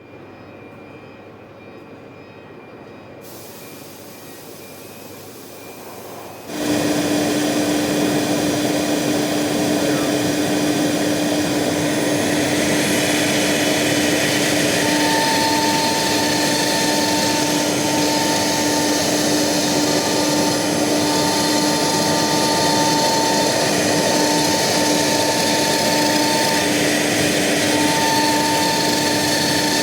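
CNC router working 18 mm vermiculite board: a low hum for the first six seconds, then suddenly a loud, steady whirring machine noise with one constant tone. A higher whine comes and goes over the second half.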